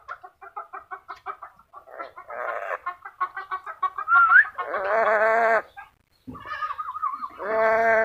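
Black-capped lory calling: a fast run of short repeated notes, about five a second, a brief rising whistle, then longer harsh calls with a wavering pitch, with short pauses between them.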